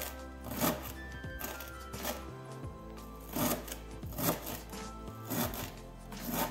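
Kitchen knife chopping fresh dill on a cutting board, a sharp knock at each stroke about once a second, over background music.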